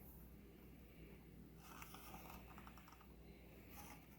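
Near silence: faint room tone, with a short run of faint light ticks about two seconds in.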